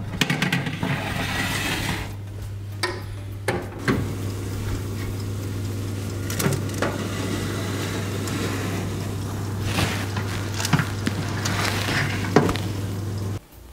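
A metal baking tray slid along an electric oven's wire rack, scraping and knocking, with the oven door clunking. Under it runs a steady low hum from the running oven, which cuts off suddenly near the end.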